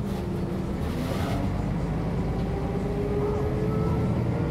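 MAN NG 262 articulated bus's diesel engine running steadily under way. A faint whine rises slowly in pitch through the second half.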